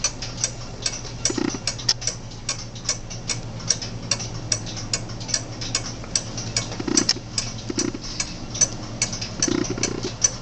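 Rebuilt 1865 fusee clock movement running, its escapement ticking in a quick, even rhythm.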